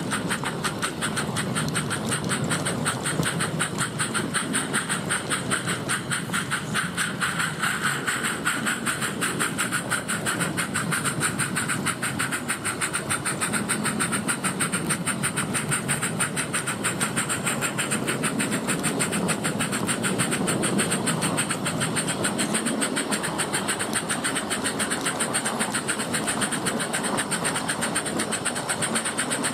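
Live-steam garden-scale Hunslet Waril class locomotive running under steam, its exhaust made audible by a fitted Summerlands Chuffer: a rapid, even chuffing beat over a steady hiss.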